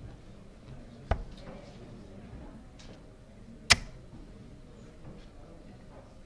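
Two steel-tip darts hitting a Nodor Supamatch 2 bristle dartboard, a sharp thud about a second in and a louder one near four seconds, over a low room murmur.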